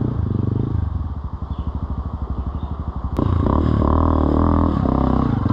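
Dirt bike engine running at low revs with a fast, even chugging. About three seconds in, an abrupt jump to a louder, steadier engine note with a slightly wavering pitch as the bike works up a rocky climb.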